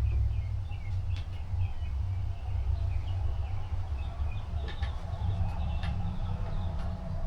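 Small birds chirping in short repeated notes, thickest in the first few seconds, over a steady low rumble, with a few light clicks.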